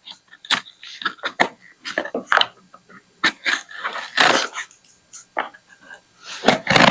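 A shipping package being handled and opened, with scattered clicks and knocks and short rustling and scraping bursts. A longer tearing or rustling noise starts near the end.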